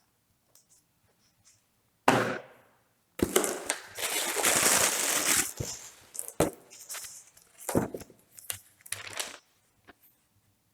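Packaging and papers being handled: a sharp knock about two seconds in, then a couple of seconds of loud rustling and crinkling, followed by scattered knocks and shorter rustles.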